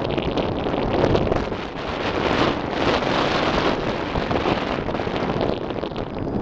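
Wind buffeting the camera's microphone: a loud, rough rushing noise that swells in a gust about halfway through.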